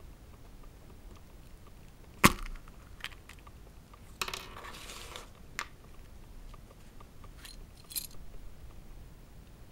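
A yellow plastic Kinder Surprise capsule snapping open with one sharp click, followed by a few lighter plastic clicks and about a second of crinkling as the foil-wrapped toy parts inside are handled. A short paper crackle near the end as the folded leaflet is opened.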